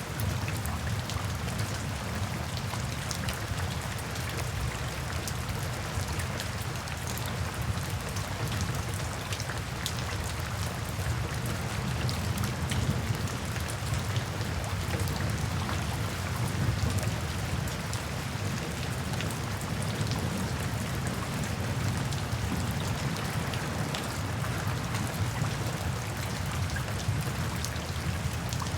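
Steady rainfall with many small drops ticking on a surface, over a low, continuous rumble.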